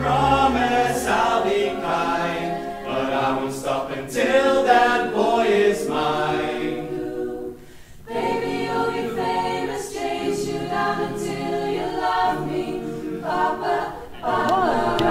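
A small mixed vocal group singing a cappella, several voices in harmony, with a brief break about halfway through.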